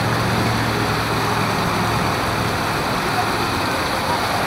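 Steady rush of running water at a water park, with crowd voices in the background; a low steady hum fades out about two seconds in.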